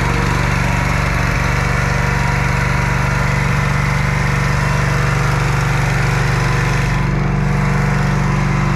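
Wood splitter's small engine running steadily at a constant speed.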